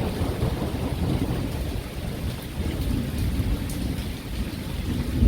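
Thunderstorm: thunder rumbling over steady rain, with a louder burst of thunder near the end.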